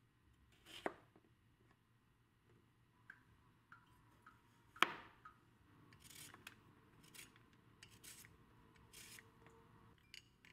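Quiet food-preparation sounds: two sharp knocks, the second the loudest, then a run of short crisp cutting strokes.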